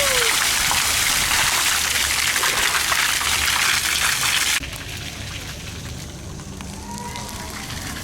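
Loud, steady noise of falling water that cuts off suddenly about four and a half seconds in, leaving a quieter hiss.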